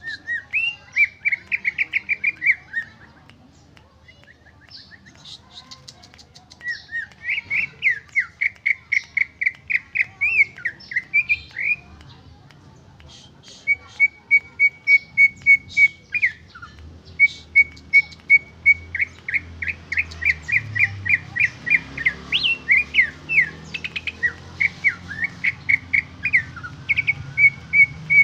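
Caged cucak ijo (leafbird) singing its own song with no mimicked inserts: fast runs of clear, evenly repeated whistled notes, about three a second, in three bouts with short pauses about 4 s and 12 s in.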